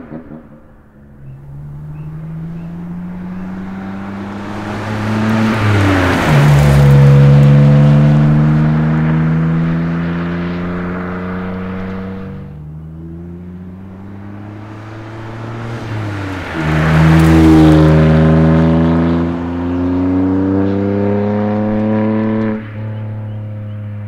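BMW M2 Competition's 3.0 L twin-turbo straight-six, heard through an MBRP 3-inch resonator-back exhaust, accelerating hard through the gears. The pitch climbs steadily in each gear and drops sharply at each of four upshifts, and the sound is loudest twice, as the car comes close.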